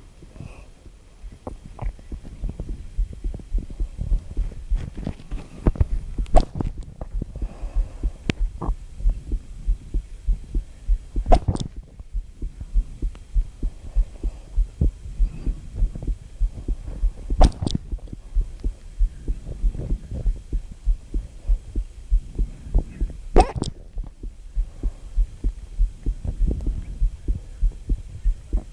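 A person hiccuping: five sharp hiccups, roughly six seconds apart, over a steady run of rapid low thumps.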